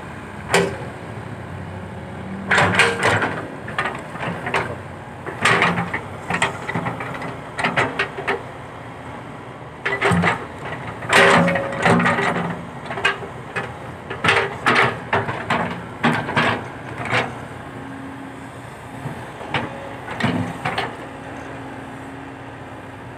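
Hydraulic excavator at work: a steady low engine hum under many irregular clanks and knocks that come in clusters, easing off near the end.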